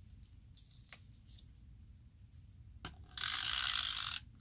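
Tombow adhesive tape runner drawn across a piece of card, its gears whirring for about a second near the end, just after a single click.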